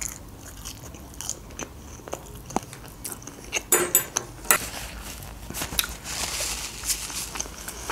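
Close-miked chewing of a mouthful of baked lasagna, with wet mouth sounds and a few sharp crunchy clicks about four seconds in.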